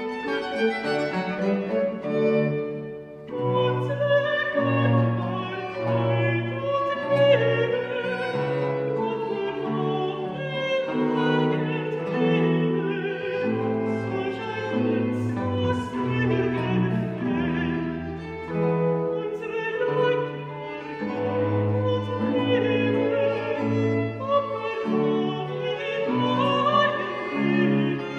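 A countertenor singing a Baroque aria, accompanied by violin and theorbo.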